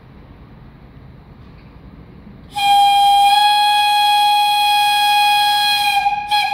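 Whistle of the E 77 electric locomotive: one long, steady, loud blast starting about two and a half seconds in, breaking off briefly near the end and sounding again.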